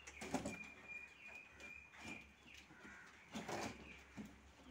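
A few irregular knocks and scrapes of a wooden crate pigeon coop being handled and set in place. A thin, steady, high tone runs through the first half.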